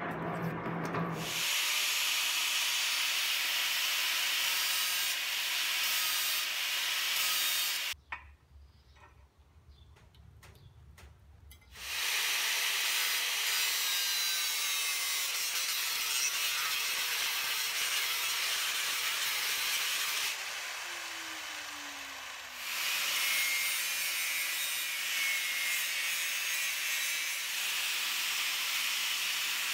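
Angle grinder grinding small steel pieces: a steady, hissy grind. It breaks off for about four seconds around a third of the way in. About two-thirds in, it drops back while the disc winds down with a falling tone, then comes back up to a full grind.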